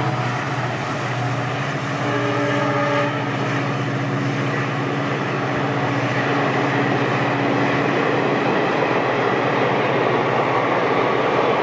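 EMD diesel locomotive passing with a steady engine drone, then a long rumble and clatter of passenger coaches rolling by on the track. The engine's tone fades after about three or four seconds and the wheel noise carries on.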